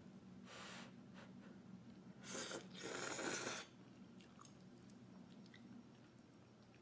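A person slurping instant ramen noodles off chopsticks: a short slurp about half a second in, then a longer, louder slurp lasting over a second from just after two seconds in.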